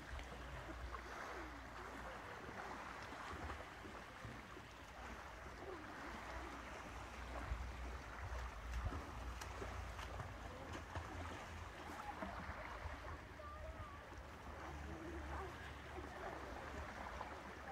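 Seaside ambience: a steady wash of sea and outdoor noise with a low rumble underneath, and faint distant voices of bathers now and then.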